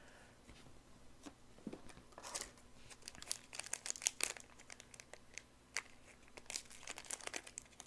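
Trading-card booster pack wrapper crinkling and tearing as it is handled and ripped open at the top. It is quiet for the first two seconds or so, then comes a run of sharp crackles.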